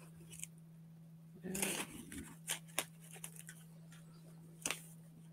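Hands working at the top of a large cardboard shipping box to open it: a short scraping rustle about a second and a half in, then a few faint clicks, over a steady low hum.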